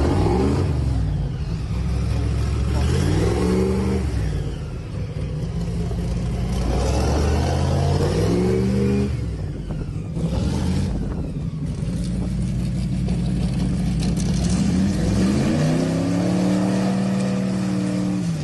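Airboat engine and air propeller revving up and down over and over, climbing in pitch four times, the last and longest rev held near the end, as the airboat powers itself up the boat ramp onto its trailer, with a rushing hiss of propeller wash.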